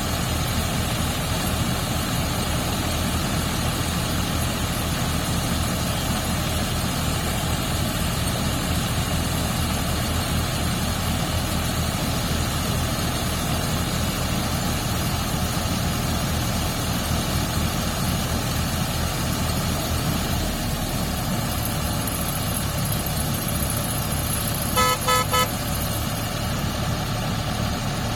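Engine of harvesting machinery running steadily. Near the end a horn gives three short toots.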